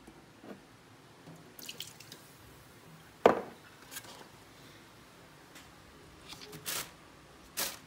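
Leftovers being emptied at a stainless-steel kitchen sink: liquid dripping and scattered light knocks of a glass and a paper noodle cup, with one sharp knock a little over three seconds in.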